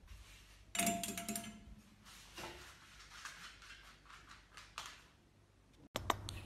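Faint, irregular tapping and clicking, as of a husky puppy's claws on a hard wooden floor, with a brief louder clatter about a second in.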